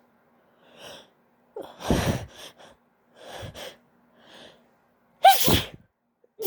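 A woman sneezing after breathy, gasping build-up inhales. Several separate bursts follow one another, with a loud one about two seconds in and the loudest a little past five seconds in.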